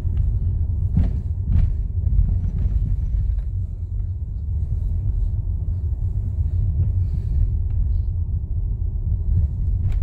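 Steady low rumble of a car driving, heard from inside the cabin, with a couple of brief knocks about a second in.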